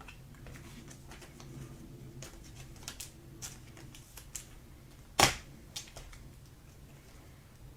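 Trading cards being handled at a table: irregular light clicks and flicks as cards are flipped and stacked, with one sharp knock about five seconds in.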